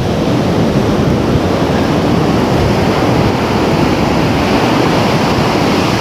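Ocean surf washing up the beach in a steady rush, with wind buffeting the microphone.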